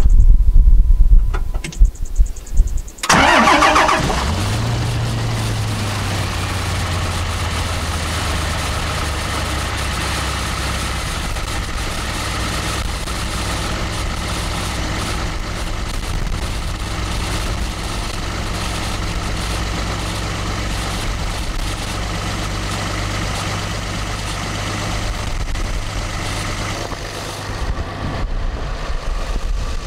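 A 5.9 Cummins inline-six turbo-diesel is cold-started on freshly installed batteries. After a few loud muffled thumps, it cranks very briefly and fires about three seconds in. It flares, then settles into a steady cold-start high idle.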